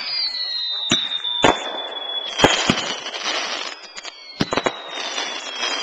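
Fireworks going off: a string of sharp bangs with bursts of crackling, over long whistles that slowly fall in pitch.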